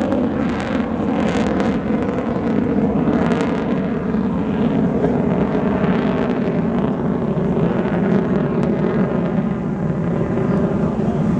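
F/A-18 Hornet fighter jet's engines heard continuously and loudly from the ground during an aerobatic display. The rushing jet noise keeps sweeping up and down in pitch as the aircraft turns and passes overhead.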